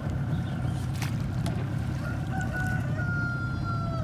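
A rooster crowing once, its call starting about halfway through and ending in a long held, slightly falling note, over a steady low rumble. A single sharp knock about a second in.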